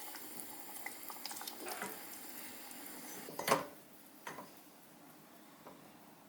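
Water running from a kitchen tap into the sink for about three and a half seconds, ending with a sharp knock, then a few light clicks.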